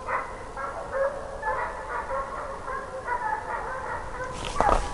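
A pack of scent hounds baying on the run, giving tongue on a trail, with several voices in quick, overlapping calls. The quarry is probably a fox.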